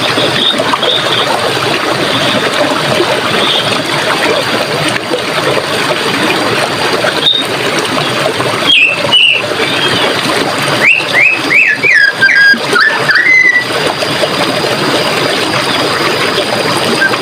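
Running water flowing steadily, with a songbird calling in a quick run of short whistled chirps about halfway through and again a few seconds later.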